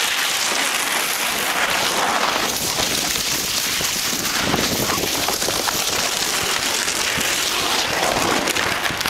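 Plastic sled scraping along icy, crusted snow, a steady rough hiss with small crackles, mixed with the crunch of running feet.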